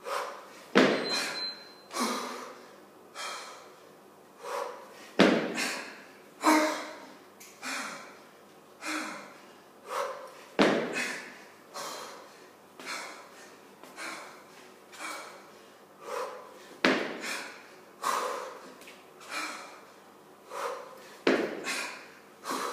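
Hard, rhythmic breathing of a kettlebell lifter working an 18 kg kettlebell, with sharp exhales about once a second. A louder thump and huff comes about every five seconds, once per jerk rep at 12 reps a minute, late in a six-minute set.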